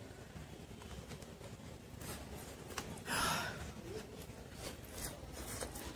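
Faint eating sounds, small mouth and spoon clicks, with one short breathy exhale about three seconds in.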